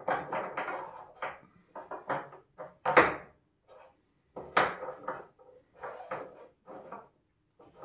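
Small cast-concrete model jersey barriers being picked up, shifted and set down on a workbench: a run of short knocks and scrapes, the two loudest about three and four and a half seconds in.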